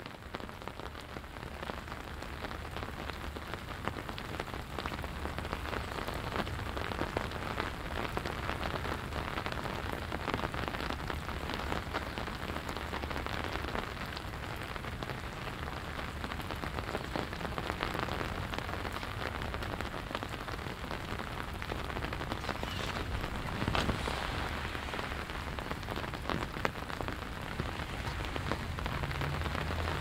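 Steady rain falling, a dense patter of drops on the pavement and surfaces around, over a steady low rumble. A slightly louder burst of drops comes about three-quarters of the way through.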